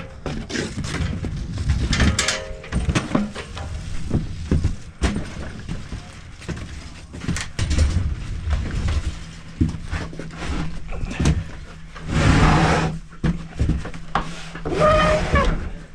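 Irregular knocks, thumps and clatter of fireworks equipment being handled and loaded during teardown, over a steady low hum, with a longer rushing scrape about twelve seconds in.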